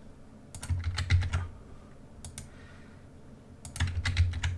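Typing on a computer keyboard: two short runs of quick keystrokes, about a second in and again near the end, with a single key press between them.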